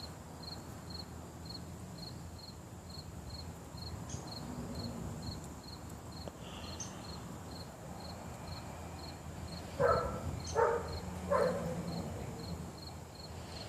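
A cricket chirping steadily, about three short high chirps a second. About ten seconds in, three short animal calls sound, each about a second apart.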